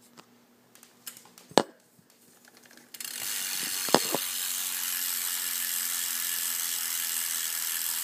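A sharp knock about a second and a half in. Then, from about three seconds in, a BMX bike's Primo Mix rear hub buzzing with a fast, steady ratchet clicking as the wheel spins and freewheels; the hub is pretty loud.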